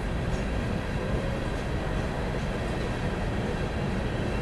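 Empty coal hopper cars of a freight train rolling past on the rails: a steady rumble of wheels and car bodies.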